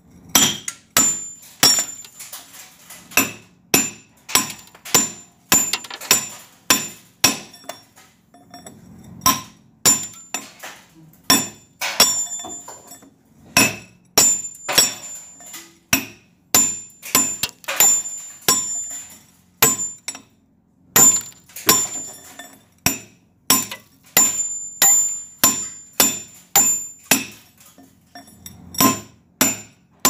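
Hammer striking a steel chisel to break through a concrete wall between drilled holes, about two blows a second with a couple of short pauses. Each blow gives a hard metallic clink with a high ring.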